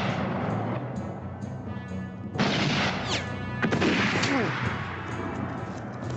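Film gunshot effects over a score. The echoing tail of a shot fades at the start, then another loud shot about two and a half seconds in rings out with falling whines after it. A low, steady musical drone lies underneath.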